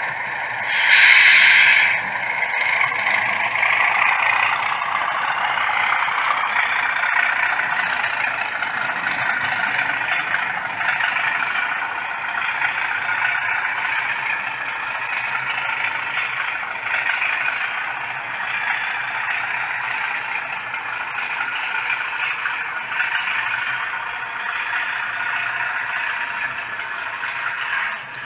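OO-gauge model trains running on the layout track: a steady rattle and clatter of wheels over the rails, with a motor whir. There is one loud, brief burst about a second in.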